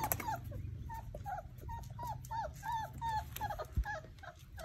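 Basset hound puppies whimpering in a rapid string of short, high whines, each rising then falling, about four a second.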